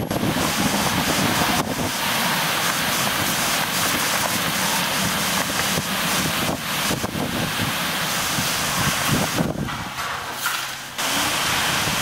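Strong, gusty wind buffeting the microphone, its rushing noise rising and falling.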